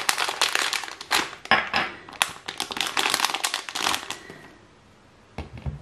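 Holographic foil zip-lock pouch crinkling and crackling as it is handled and opened and the contents are pulled out, stopping about four seconds in. A few soft low knocks follow near the end.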